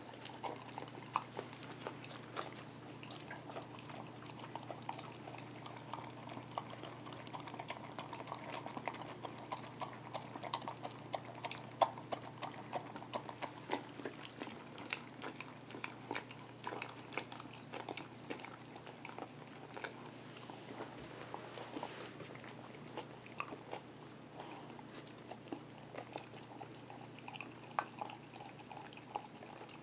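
Dogs licking and chewing leftovers out of a glass measuring cup: many small irregular clicks and smacks, over a low steady hum.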